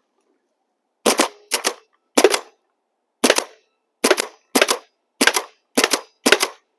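Paintball gun firing about nine single shots at an uneven pace, roughly one every half second to a second, starting about a second in.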